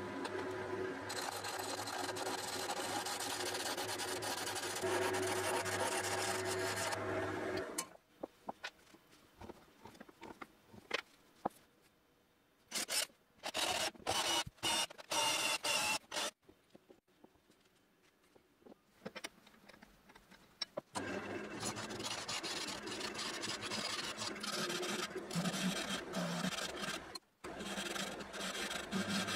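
Wood lathe running with a steady motor hum while a spinning wooden blank is worked, stopping about eight seconds in. Midway a cordless drill bores into a small wooden block in short bursts, with handling clicks around it. Then the lathe runs again with a gouge cutting the spinning wood, with a brief break near the end.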